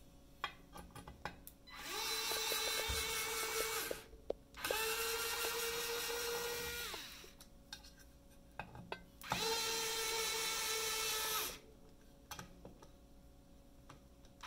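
Small electric drill with a keyless chuck, running in three bursts of about two seconds each with a steady whine that winds down at the end of each burst, while driving 2-56 threaded inserts into an aluminium housing. Light clicks come in the gaps between bursts.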